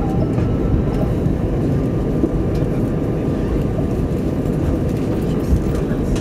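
Steady rumble inside an Airbus A320 passenger cabin as it taxis, with the engines at taxi power and the wheels rolling over the concrete taxiway, plus a faint steady whine.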